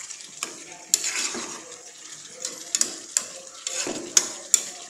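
Wooden spatula stirring and scraping chicken and potato pieces around a pan over a steady sizzle of frying, with a handful of sharp knocks of the spatula against the pan. The meat and potatoes are being fried down in spiced oil (bhuna).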